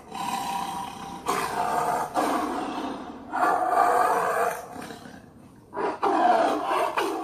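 Big cat roaring in a series of about five roars, each a second or so long, the last cut off abruptly at the end.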